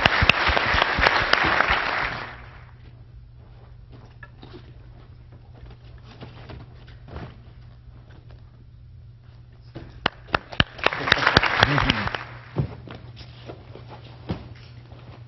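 Audience applauding for about two seconds, then a quieter stretch with scattered light knocks. A few sharp claps about ten seconds in lead into a second short round of applause.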